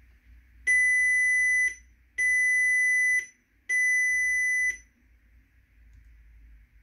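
Audi A3 8P instrument cluster's warning buzzer sounding three long, high beeps of about a second each, evenly spaced. The beeps go with the red coolant warning, 'switch off engine and check coolant level'.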